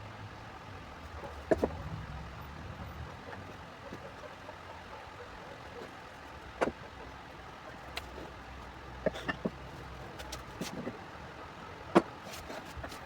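Sharp knocks and clicks, about half a dozen spread out, the loudest near the end, over a low steady hum.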